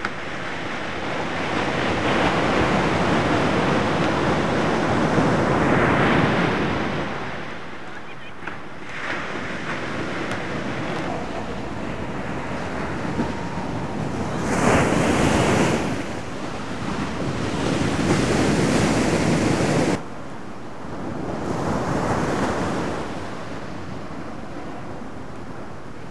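Ocean surf breaking on a sandy beach, rising and falling in long swells, with wind buffeting the microphone. The sound drops abruptly about twenty seconds in.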